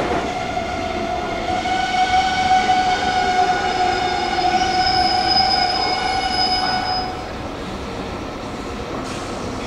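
Meitetsu electric train's wheels squealing as it rolls into the platform: a steady high squeal with several overtones, over the train's running rumble, that fades out about seven seconds in.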